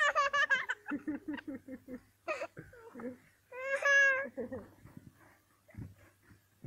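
A toddler laughing in quick high-pitched bursts, then babbling, with one long drawn-out squeal about four seconds in.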